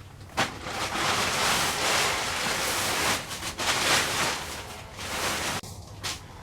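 A tarp rustling and crinkling as it is handled and pulled off a tractor: a loud, rushing noise with a few crackles. It starts with a sharp click about half a second in and dies away at about five and a half seconds.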